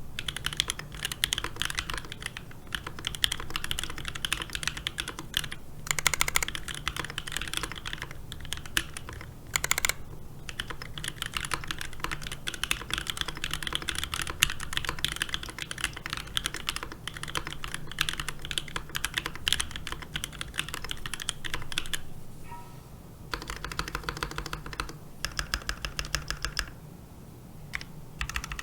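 Mechanical keyboard typed on in fast, continuous runs of keystrokes with short pauses, two of them in the last several seconds. It is an acrylic Alice-layout keyboard with an acrylic plate, NK Cream linear switches lubed with Krytox 205g0 and filmed, and EPBT 9009 PBT keycaps.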